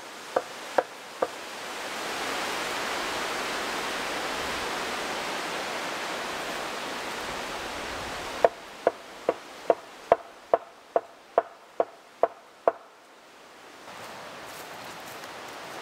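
Evenly spaced hammer blows on the wooden pole frame, each with a short ringing knock: four quick strikes at the start, then about eleven more at a little over two a second later on. Between the two runs a steady rushing noise fills in.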